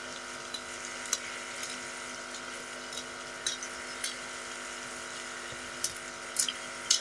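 Potato, pea, carrot and fenugreek curry sizzling and steaming in a steel karahi on a gas stove: a steady hiss with a faint hum beneath it and a few scattered small crackles.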